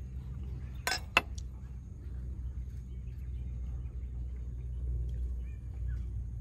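Knife cutting through a crisp, baked tart-pastry pizza crust on a wooden board: a short crunching scrape and then one sharp tap about a second in. A steady low outdoor rumble runs underneath.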